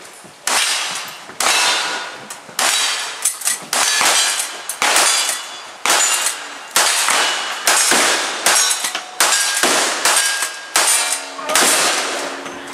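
Lever-action rifle fired in a steady string of about a dozen shots, roughly one a second, each with a ringing clang after it from the steel targets being hit.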